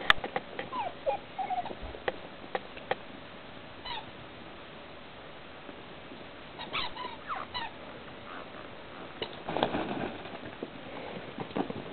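Young puppies whimpering and squeaking in short, high, wavering calls, among scattered clicks and a short rustle about ten seconds in.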